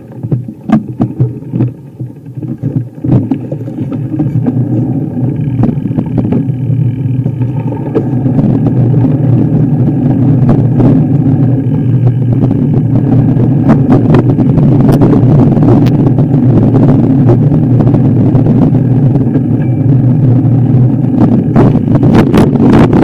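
Off-road vehicle engine running steadily under way, with a few knocks and clatters in the first few seconds before the drone builds up.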